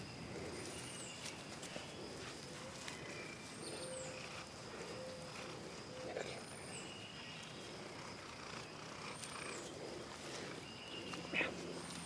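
A bird's very high-pitched call: a short, thin note that rises and then falls, repeated five times about every two and a half to three seconds, faint over a steady high whine.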